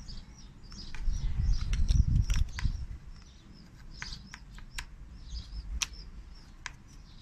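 Small birds chirping repeatedly in the background, with sharp plastic clicks from a sprayer nozzle being twisted tight onto a small solar fountain pump. A low rumble swells from about one to three seconds in and is the loudest sound.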